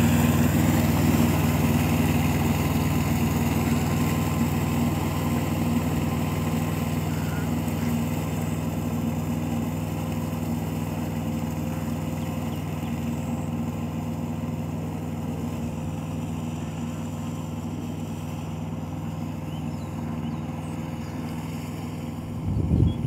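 Mini tractor's engine running steadily at constant speed as it pulls its cage wheels through a flooded paddy field, fading slowly as it moves away. Near the end a brief, louder, irregular sound comes in close by.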